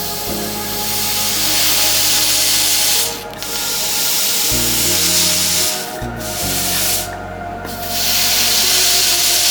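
Loud steady hissing of red-hot iron melting ice into steam, cutting out briefly about three seconds in, again near six seconds, and for longer around seven seconds, over background music with held notes and bass.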